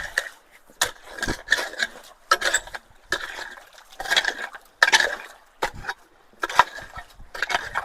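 A metal hand tool scraping and striking gravel in repeated strokes, about one a second, each a sharp clink with a gritty scrape, as the gravel blocking a culvert's mouth is dug out.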